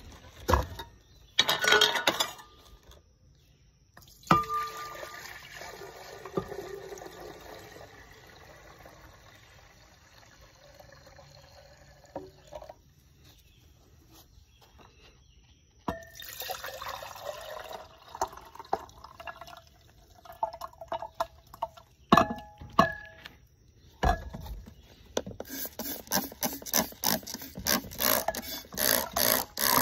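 Glassware being handled, with sharp knocks in the first few seconds, then liquid poured from a glass jar into a glass beaker, splashing and trickling over the last few seconds.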